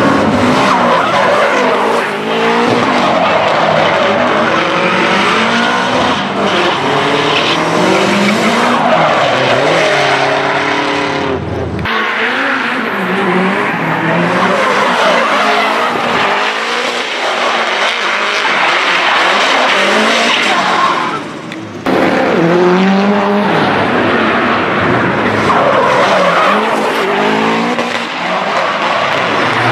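Drift cars sliding through corners, engines revving high and dropping again and again while the tyres squeal.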